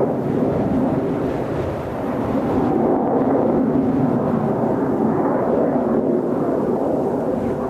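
Steady jet noise from Blue Impulse's Kawasaki T-4 twin-turbofan trainers flying in formation, heard as an even rumble with a slight dip about two seconds in.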